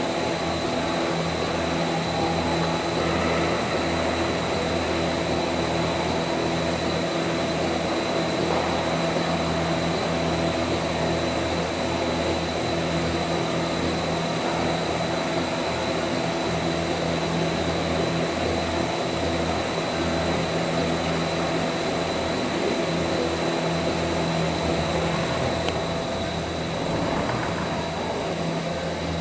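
Five upright car wash brushes spinning on their motors: a steady motor hum with several held tones under a continuous rushing whir of whirling bristles.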